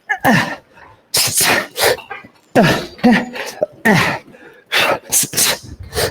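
A man's sharp hissing exhales with short grunts, about nine in quick succession, one with each punch of a boxing combination.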